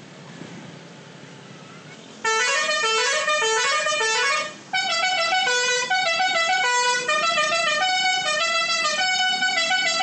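Basuri V3 'telolet' musical bus horn playing a fast melody of stepping notes, the recording sped up 1.3x so it runs quicker and higher than normal. It starts suddenly about two seconds in and breaks off for a moment near the middle before going on.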